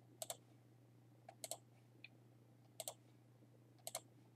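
Computer mouse button clicked four times, about once every second or so, each a quick press-and-release pair of clicks.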